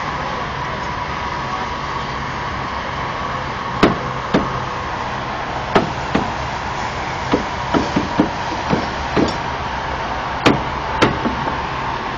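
Hammer blows knocking on the fittings of a large water meter: about a dozen sharp strikes at uneven intervals, starting about four seconds in, over a steady background hum.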